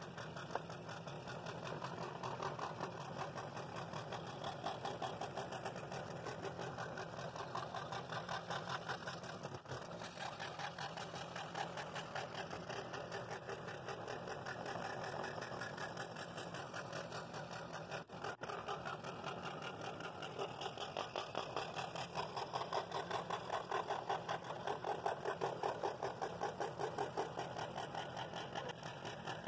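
Scroll saw running with a No. 9 blade, cutting a thick walnut blank: a steady, rapid buzz of the reciprocating blade as it saws through the wood.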